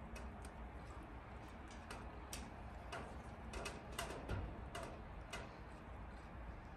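Irregular sharp clicks, about ten of them and unevenly spaced, over a steady low outdoor rumble.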